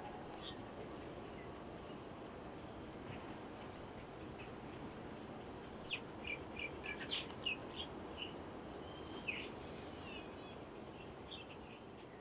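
Outdoor ambience: a steady low hiss with scattered short, high animal chirps, most of them bunched together in the middle, the whole fading out near the end.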